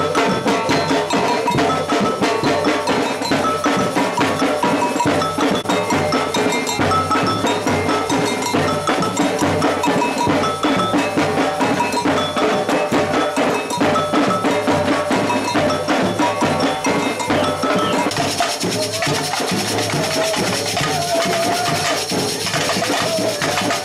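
Samba batucada percussion band playing a fast, dense drum groove with a cowbell pattern ringing over it. About three-quarters of the way through, a wavering held tone joins in above the drums.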